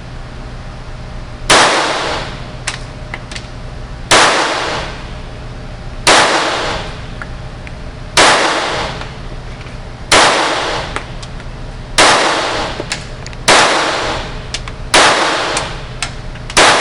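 Stoeger Luger .22LR pistol firing high-velocity rounds one at a time, about nine shots roughly every two seconds, coming a little faster near the end. Each report is followed by a long echoing tail from the indoor range.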